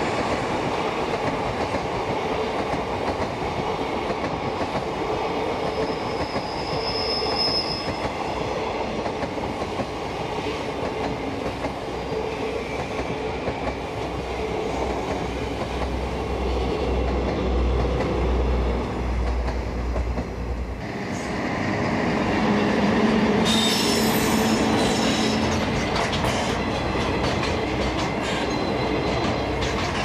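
Train cars rolling past on the rails, wheels clattering steadily. About two-thirds of the way through the sound changes as a container freight train passes close by, with some high wheel squealing and clicking.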